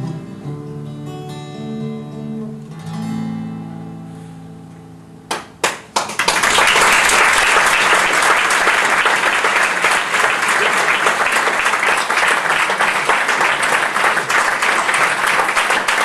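Last few chords of a song on a steel-string acoustic guitar, the final chord left ringing and fading out over about five seconds. A couple of sharp claps follow, then audience applause breaks out and carries on steadily as the loudest sound.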